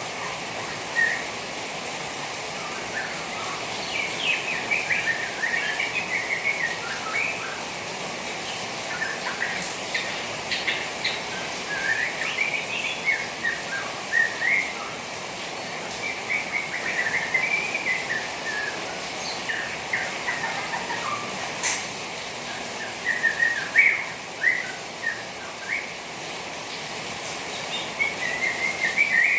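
Young white-rumped shama chattering (ngeriwik): quick runs of short twittering notes, a few seconds each, repeated throughout over a steady hiss.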